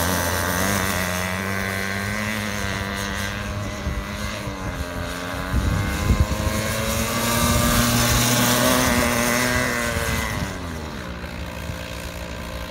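Go-kart engine running under throttle during drifting, its pitch repeatedly rising and falling as the revs go up and down. It gets quieter about ten seconds in.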